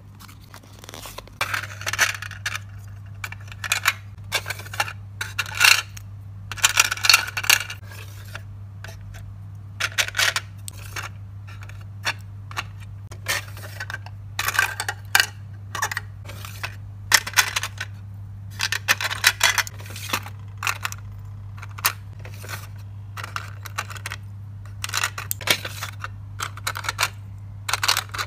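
Metal-backed acrylic hair clips clinking and clattering against each other and a clear plastic drawer as a hand picks through them, in short irregular bursts. A steady low hum runs underneath.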